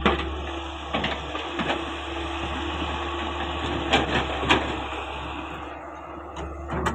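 Caterpillar 385C hydraulic excavator working: a steady engine and hydraulic drone with a low hum, broken by several sharp knocks, about a second in, twice around four seconds in and again near the end.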